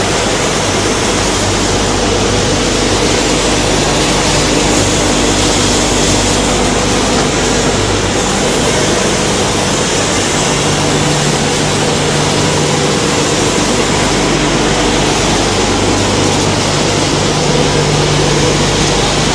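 Foam tape coating machine running: a loud, steady rushing noise with a constant motor hum.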